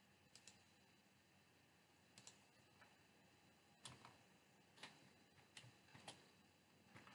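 Faint computer mouse clicks, two quick double-clicks early on, followed by a few single keyboard keystrokes as a layer name is typed.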